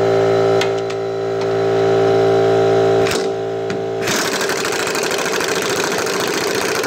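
Half-inch pneumatic impact wrench run on the strut top-mount nuts, with an air compressor running in a steady hum throughout. There are a few sharp clicks, and about four seconds in the sound turns rougher and noisier.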